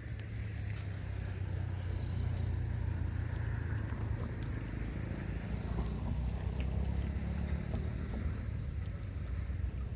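An engine running steadily with a low hum, growing a little louder about a second in.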